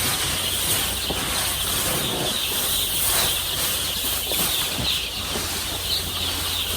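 Young chicks peeping in a steady high chorus, with rustling and flapping among the flock.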